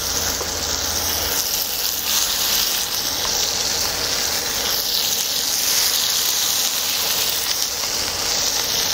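Thick pork neck steaks sizzling steadily on a hot cast-iron cauldron-lid (sotttukkeong) griddle, as more steaks are laid down beside the first.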